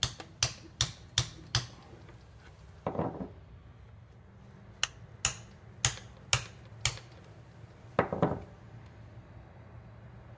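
A hammer striking the head of a bolt set into the crankshaft's pilot bearing bore, packed with bread, so that the compressed bread forces the clutch pilot bearing out. There are five quick, sharp blows at the start, then six more spaced out from about five to eight seconds in, with a duller knock between the groups and another near the end of the blows.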